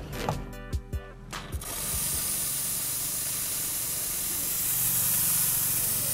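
Espresso machine steam wand hissing steadily, starting about a second and a half in after a few sharp clicks over music.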